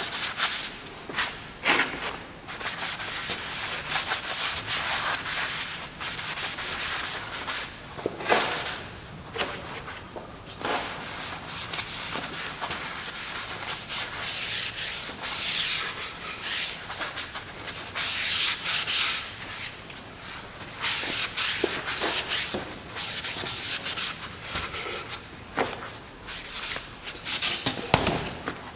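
Hand strokes rubbing across white oak, a series of irregular hissing strokes with short pauses between them and no motor running.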